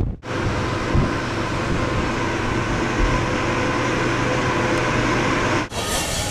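Steady mechanical droning rush with a faint low hum, typical of a cruise ship's machinery and ventilation heard on deck. It briefly drops out near the end, then resumes.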